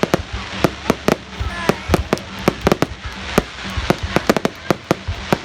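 Fireworks display: a rapid, irregular run of sharp bangs and cracks, several a second, over a continuous low rumble.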